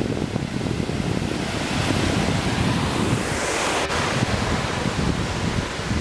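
Waterfall rushing steadily over stepped rock ledges, with wind buffeting the microphone.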